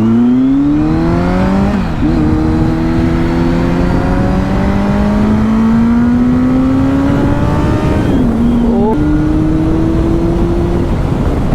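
Kawasaki Z900's inline-four engine through an Arrow slip-on exhaust with the dB killer removed, pulling under acceleration over wind rush. The pitch climbs and drops at a gear change about two seconds in, then climbs slowly. About eight seconds in it dips, jumps up with a downshift and holds steady.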